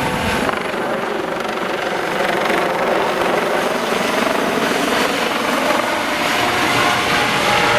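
Aerospatiale AS 365 Dauphin helicopter's twin turbines and rotor running at high power with a steady whine over loud rotor noise, slowly growing louder.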